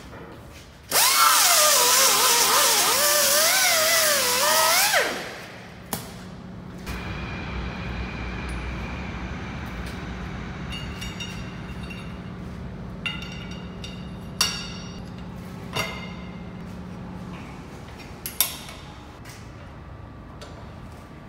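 Angle grinder grinding steel for about four seconds, its whine wavering in pitch, then cutting off. After it come a steady low hum and several sharp metallic clinks as a steel boring bar is handled and slid through line-boring bearing mounts.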